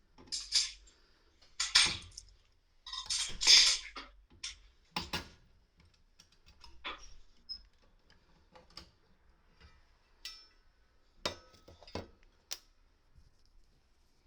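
Clicks, scrapes and small metal clinks of a cover being unfastened and taken off a newly installed furnace. The handling is busiest in the first five seconds, then thins to scattered single clicks.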